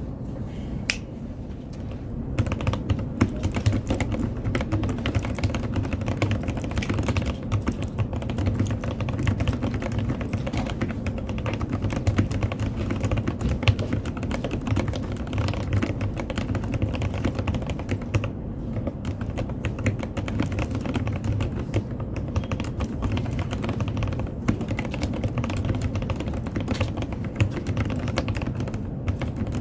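Continuous fast typing on an NJ68 mechanical keyboard with Heavy Industry keycaps, a dense stream of key clacks with a deep, low body to each stroke.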